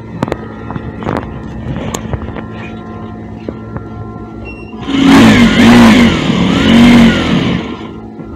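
Sewing machine running loudly from about five seconds in for two to three seconds, its pitch rising and falling as its speed changes, while it sews a temporary stitch down the dress's zip allowance. Before that, a few faint clicks.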